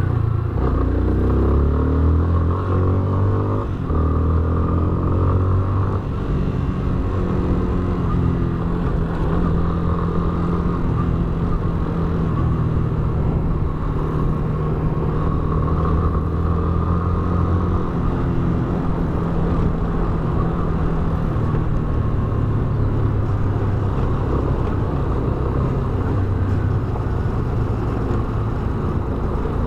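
Yamaha Fazer 250 BlueFlex's single-cylinder engine running as the motorcycle is ridden: the pitch rises over the first few seconds, drops briefly about four seconds in, then holds at a steady cruise.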